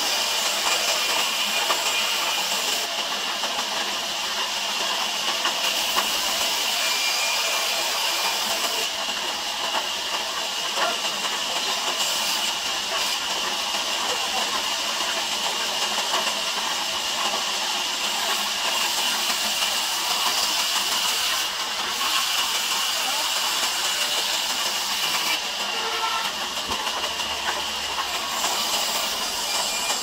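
Large sawmill band saw ripping a log lengthwise: a loud, steady, high-pitched noise from the blade cutting through the wood.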